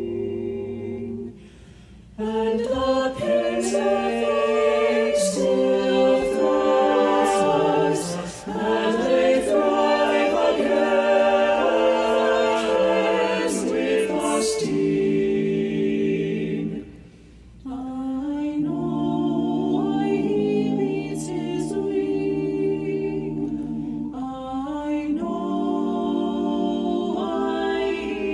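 A cappella vocal ensemble singing sustained chords in close harmony, with two brief breaks, one near the start and one about two-thirds through.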